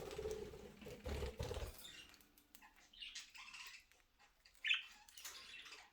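Budgies fluttering their wings in flight for the first second or so, then a few short, soft chirps.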